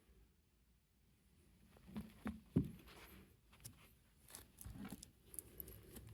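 Small plastic clicks and light handling noises as the wire clips of an Indian motorcycle war bonnet light are worked open by hand. A few sharp clicks come about two seconds in, the loudest just after, then scattered softer clicks and rustling.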